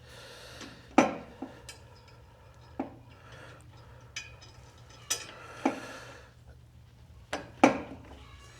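Scattered light metallic clinks and taps, about eight spread irregularly over several seconds, as a bolt is fitted by hand through the back of a steel motorcycle hitch bracket.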